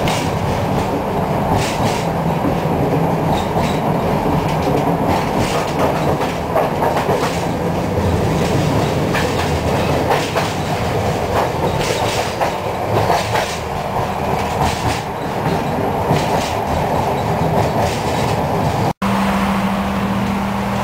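Tram in motion, heard from inside the car: a steady rumble of wheels on rail with irregular clacks over rail joints. Near the end, after a cut, a steady low hum takes over.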